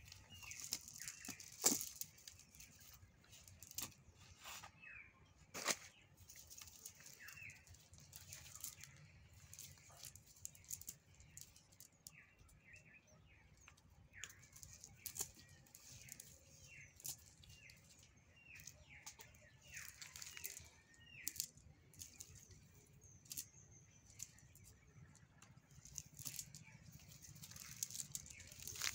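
Small birds chirping in short repeated calls, mixed with scattered sharp clicks or flaps.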